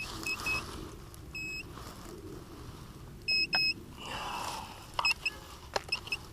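Metal detector giving short, high-pitched beeps in scattered groups, the signal of buried metal under the coil. About halfway through there is a sharp click, followed by a short rustle of brush or digging.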